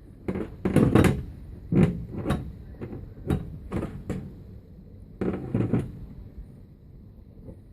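Sheet-metal knocks and clatters as an electronic air cleaner's filter cell or cover is pushed and jostled into its slot in the furnace cabinet, struggling to go on. A cluster of bangs near the start, several separate knocks through the middle, and another cluster about five seconds in.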